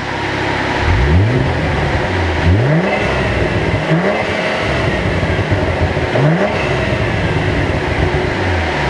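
The Cadillac CT4-V Blackwing's 3.6-litre twin-turbo V6 under hard acceleration, its note climbing in pitch again and again as it revs up through the gears, about five times.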